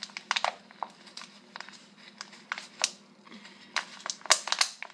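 Cloth and a thin plastic water bottle being handled and pressed together: irregular crinkling and crackling, loudest a little after four seconds in.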